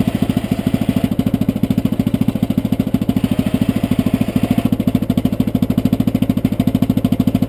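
A Yamaha Rhino's single-cylinder engine running steadily at a fast, even thump while its winch hauls a stuck side-by-side out of a mud hole.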